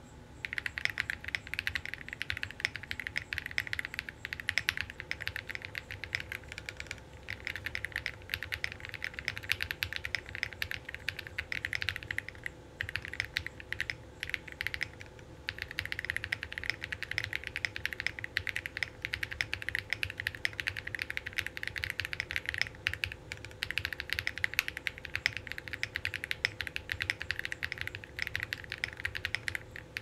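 Jris65 custom mechanical keyboard being typed on quickly and continuously: KTT Cabbage switches lubed with 205g0, in a POM plate with foam, under PBT keycaps, giving a dense run of key clacks. There are a few brief pauses.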